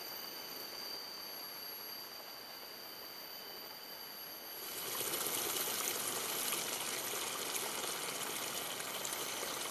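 Rain starting to fall: a dense, even patter of drops that gets suddenly louder and thicker about halfway through, over a few steady high tones.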